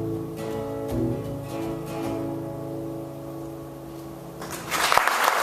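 Guitar playing the song's closing chords, strummed a few times and left to ring and fade. About four and a half seconds in, the audience starts applauding.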